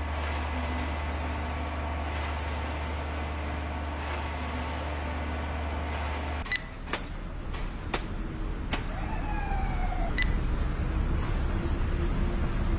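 Heavy machine engine running with a steady low drone, then, after an abrupt change about six and a half seconds in, several sharp knocks and clatter with a short falling whine.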